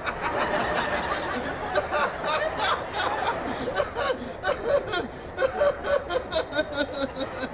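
People laughing in quick, repeated bursts.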